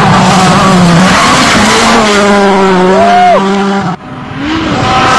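Volkswagen Polo R WRC rally car's engine held at high revs as it slides on loose gravel, with a hiss of gravel under the tyres. About four seconds in, the sound cuts off abruptly, then the engine comes back with revs climbing.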